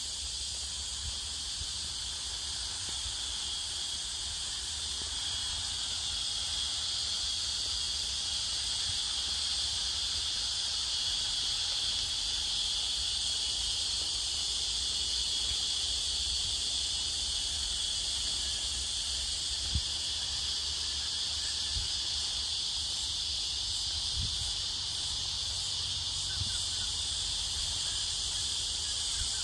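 A steady, unbroken chorus of cicadas buzzing high and continuous, with a low rumble underneath.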